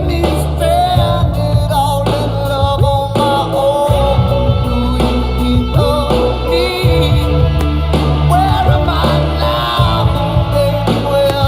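Music with a singing voice over a heavy, steady bass line, in a rock or pop style.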